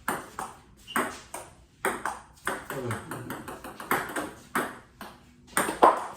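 Table tennis rally: a celluloid-type ping-pong ball clicking sharply off paddles and the table, about one to two hits a second, with the loudest hits near the end.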